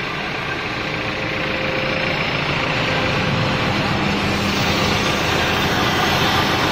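CNC router spindle running and cutting into a foam block turning on a rotary axis: a steady, loud mechanical noise with a faint low hum, unbroken throughout.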